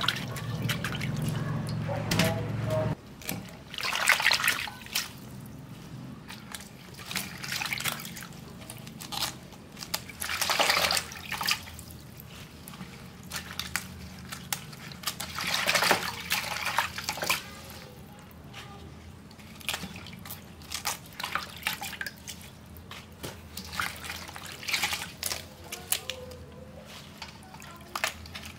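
Water splashing and dripping as vegetables are washed by hand in a stainless steel bowl of water and lifted out dripping; separate splashes come every few seconds.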